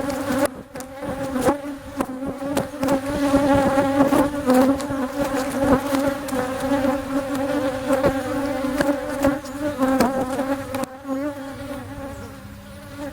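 A honeybee colony buzzing in mass, a steady, wavering hum from many bees, disturbed as their hollow bee tree is felled and opened. Scattered sharp clicks and knocks sound over the buzz.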